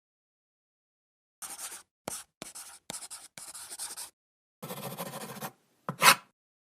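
Pencil writing on paper sound effect: a run of short scratchy strokes beginning about a second and a half in, a longer stroke near five seconds, and a louder, sharper stroke about six seconds in.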